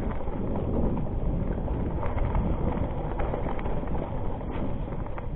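Mountain bike riding fast down a dirt and stony trail: tyres crunching over the ground and the chain and frame rattling with many small knocks over the bumps, with wind rumbling on the microphone.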